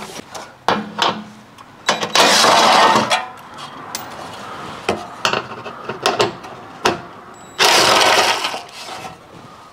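A handheld cordless power tool runs in two bursts of about a second each, about two seconds in and again near the end, undoing bolts on a car's underbody heat shield. Sharp metallic clicks and knocks from handling tools and parts fall between the bursts.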